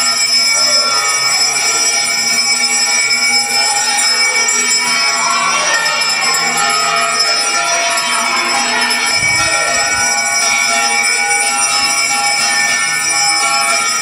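Temple bells ringing on without a break for the arati, many overlapping metallic tones held steady throughout, with a brief low thud about nine seconds in.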